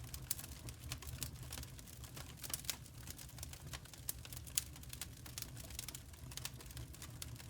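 Wood fire crackling: irregular sharp pops and snaps of varying strength over a steady low rumble.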